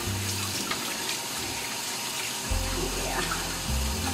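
Kitchen faucet running steadily, its stream splashing onto a Pomeranian's coat in the sink as a hand works the water in to wet the dog.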